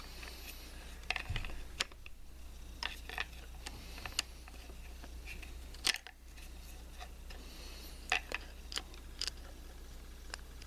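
Light scattered clicks and taps of a screwdriver and small parts being handled at a distributor, with one sharper click about six seconds in.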